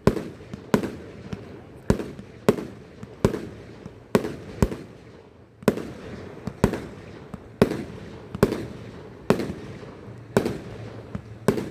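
Fireworks display: a steady run of about fourteen sharp shell bursts, roughly one every second, each bang followed by a short rumbling echo.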